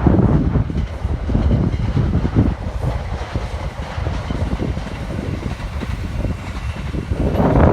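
A train running past on the line, a steady rumble with wind buffeting the microphone.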